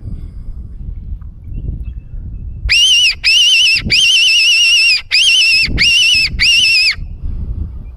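Silva fox call blown in six quick, high, wavering squeals, a rabbit-distress imitation used to lure foxes and feral cats. Low wind rumble on the microphone before and after.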